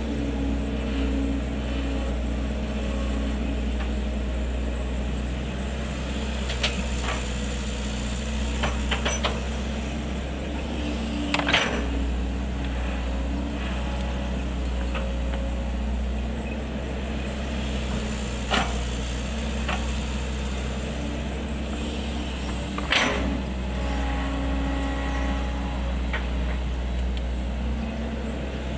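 Kobelco SK135SR crawler excavator's diesel engine running steadily while it digs, with a handful of sharp knocks, the strongest near the middle and about three-quarters of the way through.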